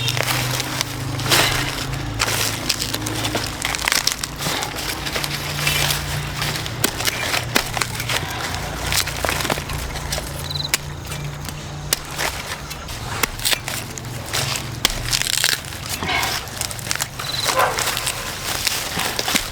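Irregular crackling and crunching, many sharp clicks in quick succession, over a low steady hum.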